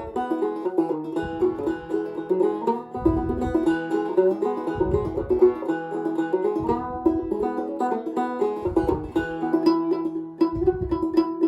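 Mountain banjo being played: a steady run of plucked notes with one note ringing on underneath, and a low thump about every two seconds.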